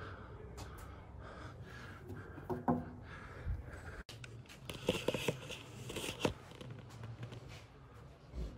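Faint handling noise from a handheld recording device being moved: scattered light clicks and rustles over a low steady hum. The sound drops out for an instant about four seconds in.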